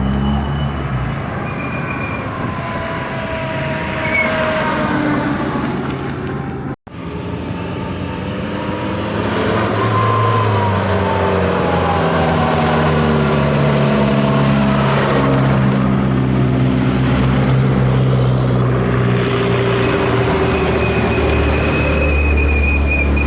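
Hillclimb race car engines at full throttle, their pitch rising and falling as the cars accelerate and change gear. There is a sudden break about seven seconds in, and then a longer, louder run of engine noise.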